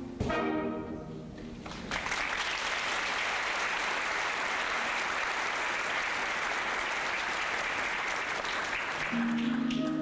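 A theatre audience applauds after the orchestra's last notes fade in the first second or two. The clapping holds steady, and near the end the orchestra starts playing again beneath it.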